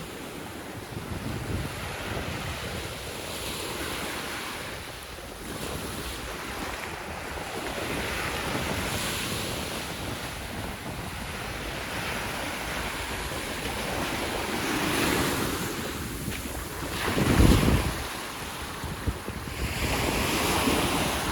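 Sea waves breaking and washing up a sandy shore, swelling and fading every few seconds, with wind on the microphone. A loud low rumble surges about three quarters of the way in.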